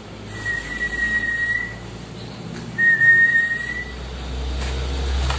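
Two long whistled notes at a steady high pitch, each about a second long, the first starting near the beginning and the second about a second and a half after the first ends.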